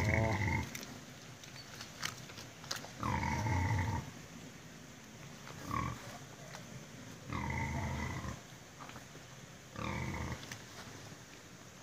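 Woolly pig grunting five times, about two seconds apart, each grunt under a second long and the third one short.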